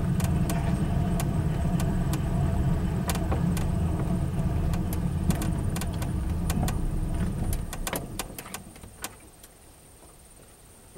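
Light aircraft engine idling while taxiing, heard from inside the cockpit, with scattered rattles and clicks; about eight seconds in the engine is shut off and runs down to a stop, leaving only faint clicks.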